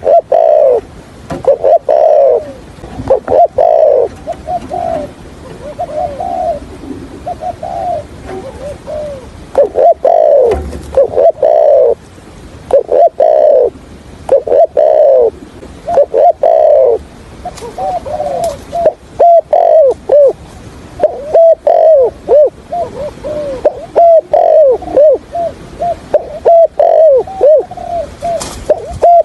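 Spotted dove (cu gáy) cooing over and over in clusters of short, arching coos, with stuttering runs of quick notes between the fuller phrases. These are the calls of a decoy dove, used to draw wild spotted doves in to a trap.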